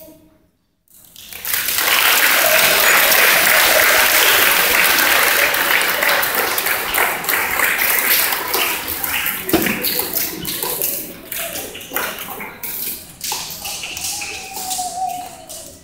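Audience applauding, starting about a second in after a brief hush: dense clapping at first, then thinning into scattered separate claps toward the end.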